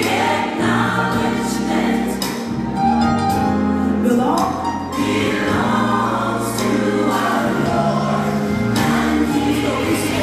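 Gospel choir song: a choir singing over held bass notes that change every second or so.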